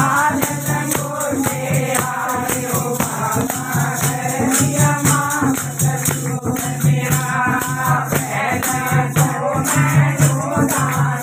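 A group singing a Hindi devotional bhajan to Balaji, with a rattling percussion instrument keeping a fast, steady beat.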